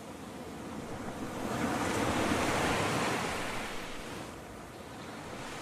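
Ocean surf: a wave swells and washes in, loudest about two to three seconds in, then draws back, with the next one building near the end.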